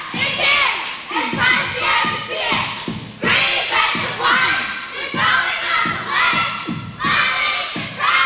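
Young cheerleaders shouting a cheer chant together in short, loud bursts about once a second, with thuds from stomps and moves on the mat underneath.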